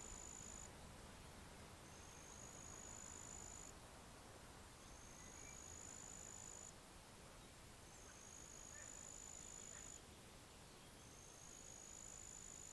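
An insect singing a high, thin buzzing trill of about two seconds, its pitch rising slightly, repeated with short gaps between (five buzzes, the first already ending as the sound begins), over a faint steady background hiss.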